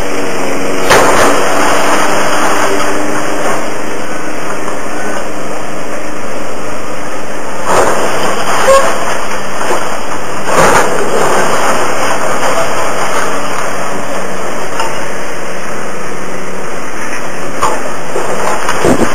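Komatsu hydraulic excavator running steadily as it tears into a building, with several crashes of falling rubble: one about a second in, two in the middle and one near the end.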